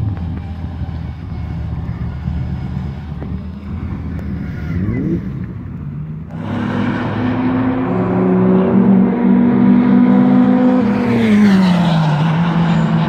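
Race car engine at high revs approaching along the pit straight, then passing close by about eleven seconds in; its engine note drops sharply in pitch as it goes past. Before this, about the first six seconds hold a lower rumble of idling engines.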